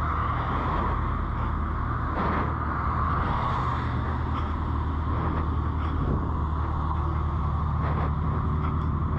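A car engine running at steady revs, with a constant low hum and road and wind noise while driving.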